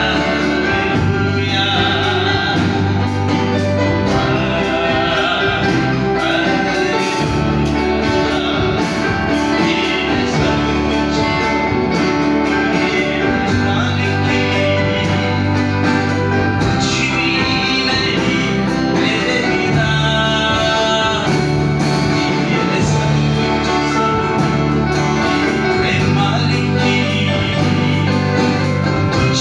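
Live gospel worship song: singing accompanied by guitar, led by a man at a microphone.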